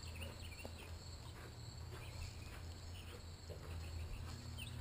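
Faint outdoor farmyard ambience: a steady chorus of crickets and other insects trilling, with a few small chirps and a steady low hum underneath.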